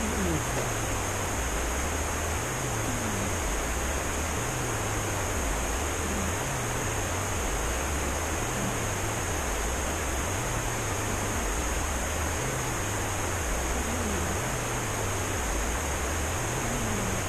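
A sleeping cat snoring: a low rasp that comes and goes with each breath, about every two seconds, under a steady hiss.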